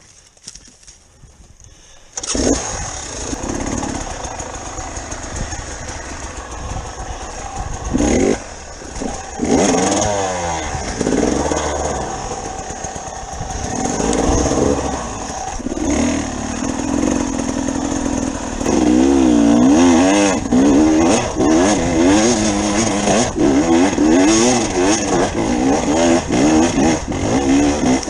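Dirt bike engine being ridden hard. It comes in about two seconds in and keeps running, with the revs repeatedly rising and falling, most busily in the second half.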